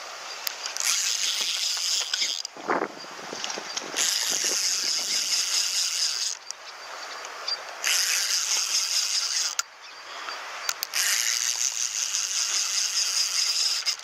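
Vintage Omori Diamond Reel Tackle Auto No.1 spinning reel being cranked in four spells with short pauses between, a fast, fine rattling from its gears.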